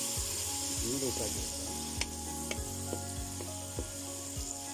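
Thick masala sizzling and steaming in a hot pan as hot water is poured in to loosen it, with a spoon scraping and clicking against the pan now and then.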